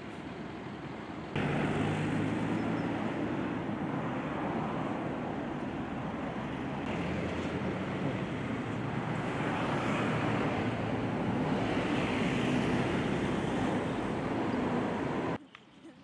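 Steady engine and traffic-like rumble with a low hum, starting abruptly about a second and a half in and cutting off suddenly near the end.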